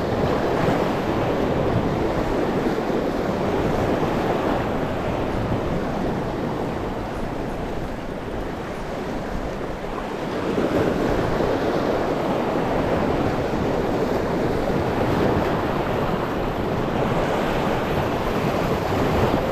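Sea surf washing over shore rocks: a steady rush that eases a little around the middle and swells again.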